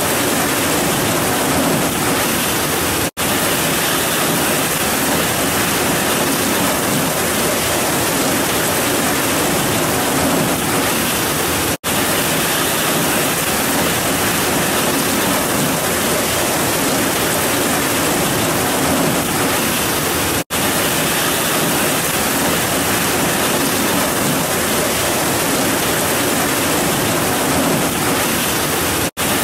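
Heavy rain pouring down steadily as a dense, even hiss, broken by a split-second drop-out about every nine seconds.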